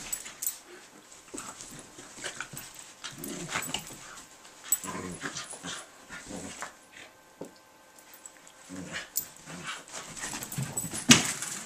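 Two dogs play-fighting: bursts of growling, yips and scuffling, with a sharp knock near the end.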